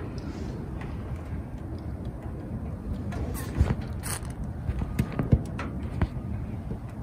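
Steady low wind rumble on the microphone, with a few sharp clicks and knocks in the second half.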